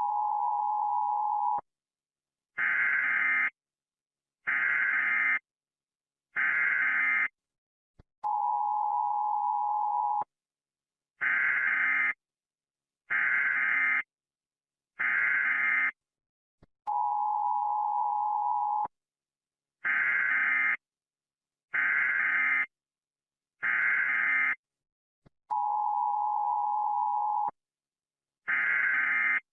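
Emergency alert alarm tones played through a vocoder, giving a buzzy electronic tone. A long lower tone is followed by three shorter, higher beeps, and the set repeats about every eight and a half seconds.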